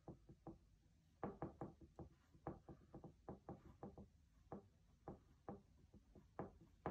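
Irregular light taps and knocks, about twenty in quick uneven clusters, as a fine paintbrush dabs against a stretched canvas. The taps thicken from about a second in, and a last sharp one lands at the very end.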